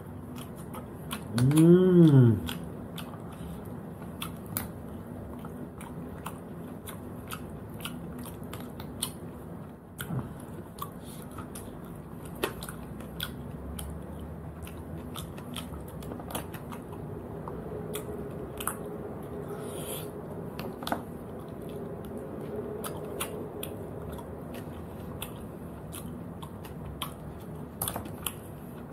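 Close-up eating of cooked snails: many small clicks and taps of snail shells and a toothpick, with chewing. About two seconds in, a short, loud voiced sound whose pitch rises and then falls.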